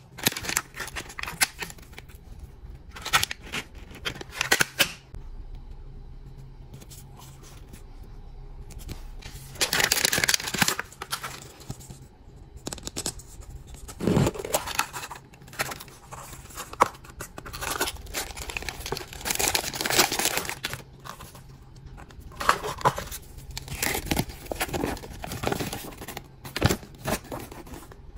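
Paper and plastic-film wrapping being torn and crinkled off a toy capsule ball by hand, in irregular spells with a quieter stretch several seconds in.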